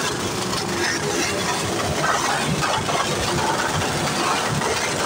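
Motorcycle engines running on display stands, a steady dense din with no clear pitch.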